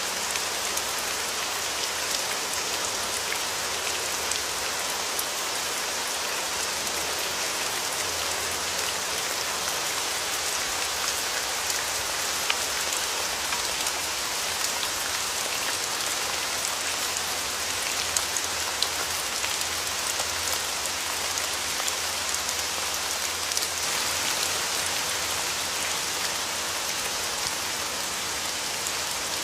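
Steady rain falling on a surface, an even hiss with scattered sharper drop ticks.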